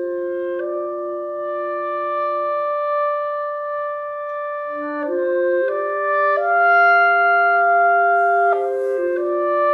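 Several overlaid clarinet parts holding long improvised notes together, so that two or three pitches sound at once like slow chords. The notes change in small steps, most of them in the second half.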